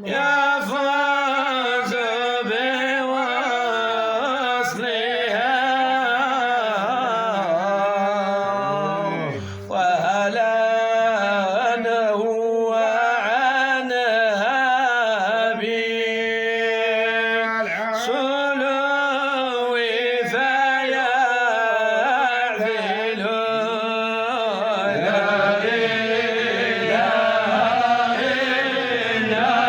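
Male voice chanting a Sufi devotional poem in long, melismatic sung phrases over a steady low drone, with a short break for breath about ten seconds in.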